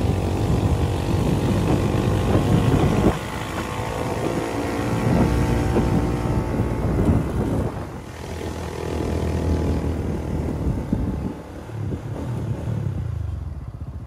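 Motorbike engine running as it is ridden, its pitch rising and falling with speed, dropping in level about three seconds in.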